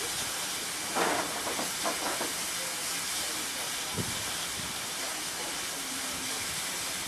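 Steady hiss of steam escaping from a standing GWR 5600 class tank locomotive, no. 5619, with faint voices about a second in and a short knock about four seconds in.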